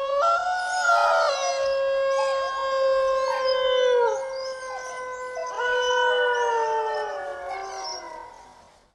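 Canine howling: several voices hold long, overlapping calls. A fresh howl rises in about five and a half seconds in, and the chorus fades out near the end.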